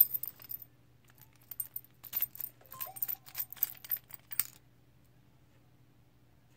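Keys on a small ring jingling and clicking against a clear acrylic practice padlock as it is handled and its key is fitted into the keyway. The rattling stops about four and a half seconds in.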